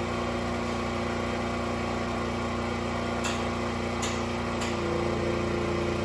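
Portable gasoline generator engine running steadily, with a few light clicks about three to four and a half seconds in. About five seconds in, the engine note shifts and grows slightly louder as the generator takes on a second 1500-watt space heater as load.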